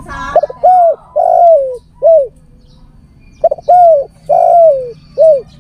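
Male spotted dove cooing its song twice. Each phrase is a short note, an arched coo, a longer coo falling in pitch, and a short closing coo.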